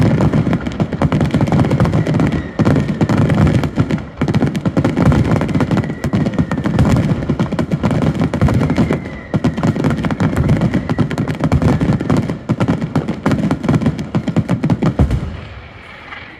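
Daytime fireworks barrage: a dense, continuous volley of rapid bangs and crackles from shells bursting overhead. It stops abruptly near the end.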